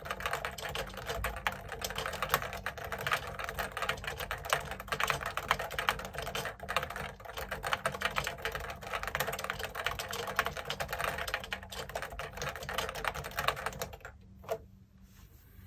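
Fast, continuous typing on a JUKI Celavi FK212-JS keyboard with Topre Hipro switches and 25 g domes, resting on two stacked desk mats and picked up through an iPhone 12 Pro microphone. The typing stops near the end, followed by one soft click.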